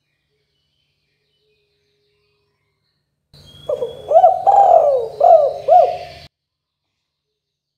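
Spotted dove (tekukur) cooing: after silence, one phrase of about five low coos, each rising and falling in pitch, begins about three and a half seconds in and cuts off abruptly.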